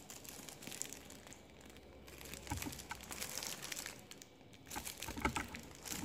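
Thin clear plastic packaging bag crinkling as fingers pick at and pull open its seal, in small scattered crackles that grow busier in the second half.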